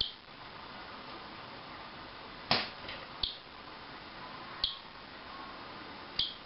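Male northern cardinal striking and pecking at window glass: five sharp taps spread over several seconds, the loudest about two and a half seconds in. This is the usual sign of a cardinal fighting its own reflection.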